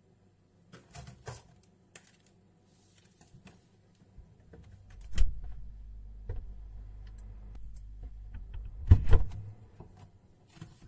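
Refrigerator door handled: a few light clicks and knocks, a thump about five seconds in as the door is pulled open, a steady low hum while it stands open, then a couple of loud thuds about nine seconds in as it is shut.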